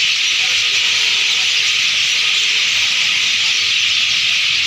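Dense chorus of thousands of roosting birds chirping together in one tree, blending into a loud, continuous high-pitched din like a hiss.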